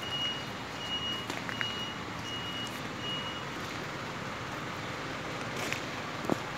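A high electronic warning beep repeating roughly once a second, like a vehicle's reversing alarm, over a steady background hum. The beeping stops about halfway through, and a few faint clicks follow near the end.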